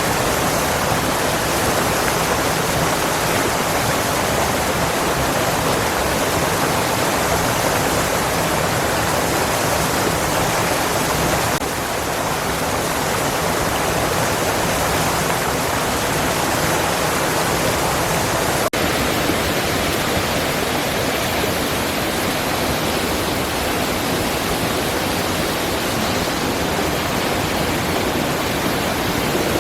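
Hot-spring waterfall: a steady rush of falling water. The sound changes slightly about 12 and 19 seconds in.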